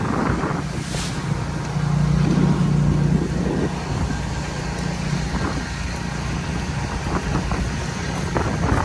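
Motor vehicle engine rumbling on the street, swelling about two seconds in and easing off after three and a half seconds.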